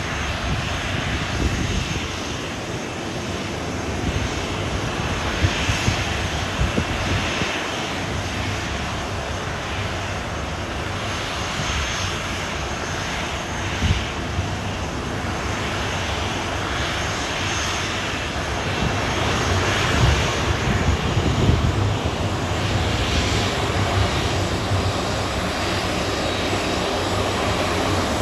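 Boeing 737 airliner's jet engines running with a steady rushing noise and a low rumble, holding level without a clear spool-up or fade.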